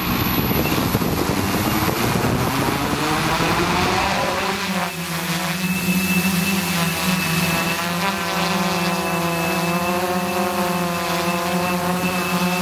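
Sky Hero Spyder6 hexacopter's electric motors and propellers spinning up for takeoff, heard from the camera on board the drone. The sound is rough and uneven at first; about four seconds in, its pitch rises and settles into a steady hovering hum.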